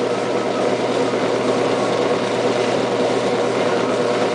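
Washing machine running as it draws in rinse water: a steady mechanical hum over a rushing noise. The owner says it doesn't sound right; the machine is not going into its spin.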